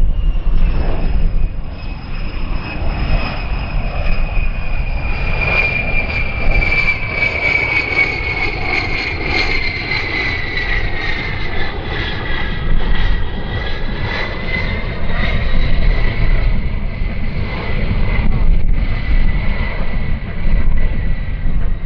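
USAF A-10 Thunderbolt II's twin General Electric TF34 turbofan engines whining over a low rumble; the whine slides down in pitch over the first half and then holds steady.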